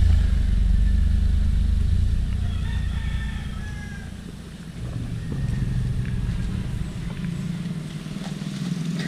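Small Toyota hatchback car driving past on a gravel road, its engine and tyre rumble fading away over the first few seconds, then its engine running at low revs as it stops. A rooster crows faintly about three seconds in.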